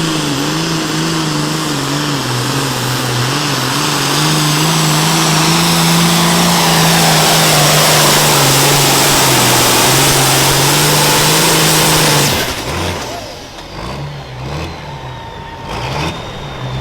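Super farm pulling tractor's 640-cubic-inch diesel engine running flat out under load during a pull, a loud steady drone with a heavy hiss above it. About twelve seconds in it is cut back sharply to a much quieter, lower running.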